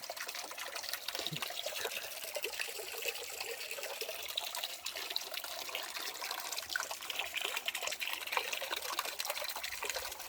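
Water from a spring running steadily, a continuous trickling.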